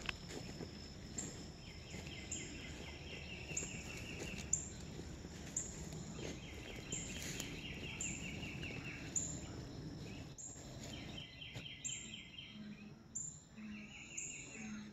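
Morning birdsong outdoors. One bird repeats a rapid trill lasting about two seconds every few seconds, over thin, high, falling notes about once a second. In the last few seconds a low note repeats a little faster than once a second.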